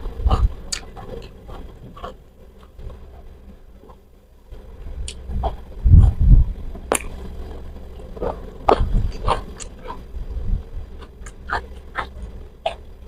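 Close-miked eating by hand: wet mouth smacks, lip clicks and chewing, scattered and irregular, with a few low thumps. It goes quieter for a couple of seconds about two seconds in.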